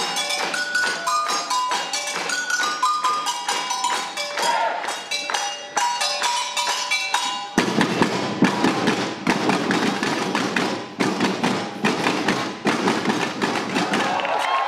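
Samba percussion band playing a fast, dense rhythm on drums and shakers. For the first half a stepping melody line runs over the drumming. About halfway through it changes suddenly to a fuller, harder-hitting all-percussion passage.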